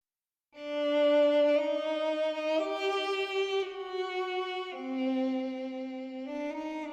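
Music: a slow melody of held notes in a bowed, violin-like tone, one note at a time with the pitch changing about once a second, starting about half a second in.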